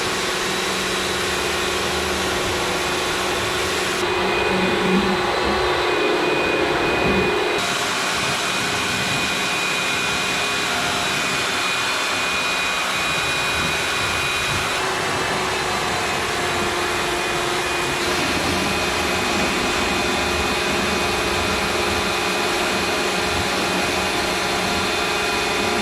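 A small electric motor running steadily with a hiss and a fixed whine, the kind of motor in car-washing gear. The sound changes abruptly a few times.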